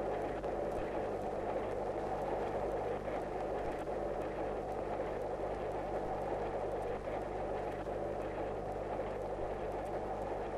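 Steady rumble of a railway carriage running along the track, heard from inside the carriage on an old film soundtrack.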